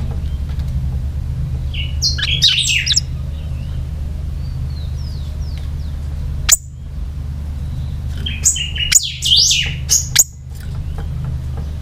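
Caged pica hueso singing in two short bursts of fast, high chirping notes, one about two seconds in and a longer one near the end, with a few soft chirps and a single sharp note between. A steady low hum runs underneath.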